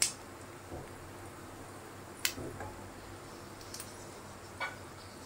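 Beef kababs shallow-frying in oil in a nonstick pan: a faint steady sizzle. Four sharp clicks of the spatula against the pan break it, the loudest at the very start.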